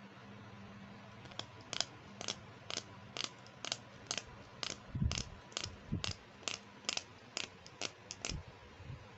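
Short crisp clicks or snips repeating about two a second, from handling a plastic toy makeup set or its packaging, with a couple of soft low thumps midway.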